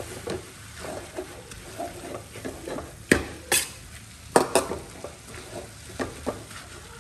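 Metal spatula stirring and tossing greens and meat in a steel wok, scraping over the pan with a few sharp clanks of metal on metal about halfway through, over the steady sizzle of the stir-fry.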